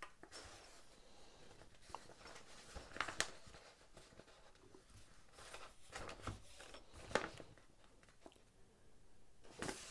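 Faint handling noise: a sheet of printer paper rustling and a folding knife being set down on it and shifted by hand, with a few soft rustles and taps, mostly around three seconds in and again around six to seven seconds in.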